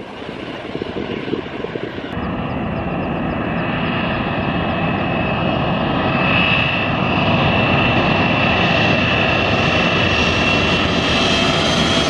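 Boeing 777 airliner on final approach passing low overhead: its turbofan engines give a rumble topped by several steady high-pitched whining tones, growing louder. The first two seconds hold only wind noise on the microphone.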